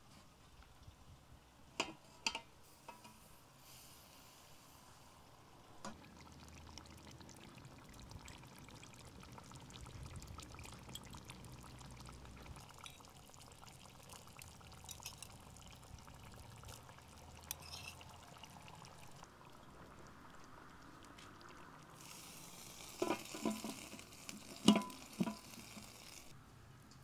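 Cooking at a wood-fired stove: sharp clinks of an aluminium pot and lid about two seconds in, faint pouring and frying in the pot through the middle, then a louder sizzle with a cluster of metal lid knocks near the end, the sizzle cutting off as the lid goes back on.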